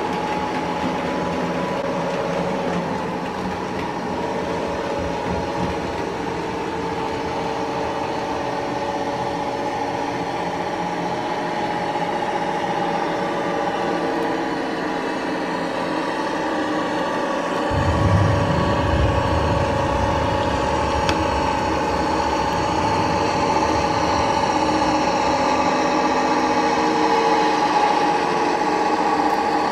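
Model diesel locomotive and its coaches running on a model railway layout: a steady humming drone, joined about two-thirds of the way in by a low rumble as the train comes closer.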